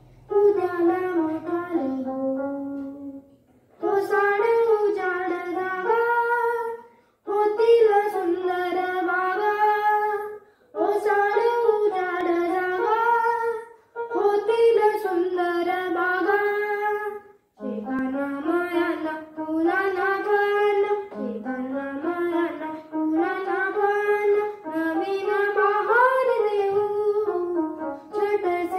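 A boy singing a Marathi school poem in short melodic phrases of about three to four seconds each, with brief pauses between them, accompanying himself on a small electronic keyboard.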